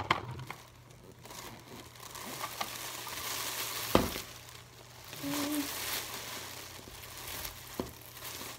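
A plastic shopping bag rustling and crinkling as plastic hamster-cage parts are put into it, with a sharp knock about four seconds in.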